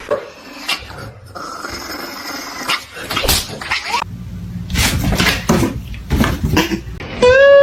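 Pet animal noises with irregular knocks and rustling, then one loud cat meow near the end.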